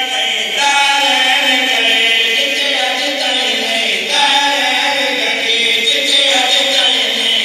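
A small group of men chanting a Shia devotional qasida into a microphone, one voice leading with others joining, in long held melodic phrases.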